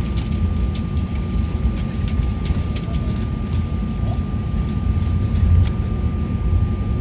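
Cabin noise inside an Airbus A320 moving on the ground: a steady low rumble from the engines and undercarriage with a constant thin whine, and scattered light ticks and rattles.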